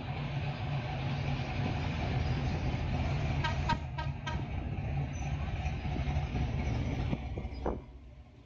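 Classic cars driving slowly past with their engines running, and a car horn giving a quick series of short beeps about three and a half seconds in. The sound drops off sharply near the end.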